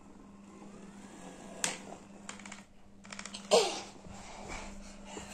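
Handheld electric massager running with a steady low motor hum, with scattered clicks and taps as it is moved about and handled. About halfway through comes one short, loud squeal that falls in pitch.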